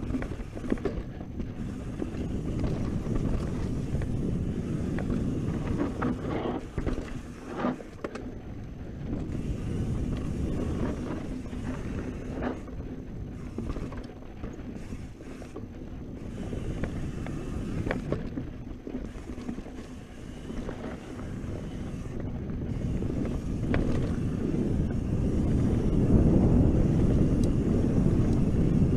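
Mountain bike riding fast down a dirt trail: wind buffeting the handlebar-mounted camera's microphone over tyre rumble, with a few sharp knocks and rattles from rocks and roots. It grows louder near the end as the bike picks up speed on open track.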